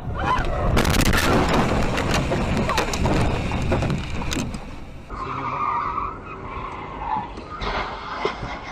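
Road crash heard from a dashcam: a dense run of impacts and crunching with tyre skidding. After a cut, an overturned car scrapes and slides along the asphalt on its roof.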